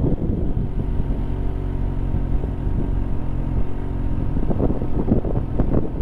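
Motorcycle engine running steadily at low speed, becoming rougher and noisier after about four and a half seconds.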